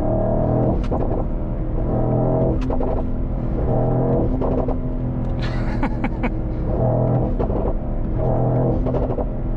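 Mercedes-AMG GT 63's 4.0-litre twin-turbo V8 exhaust, loud, its note rising and falling several times under hard acceleration, with sharp pops and crackles in between.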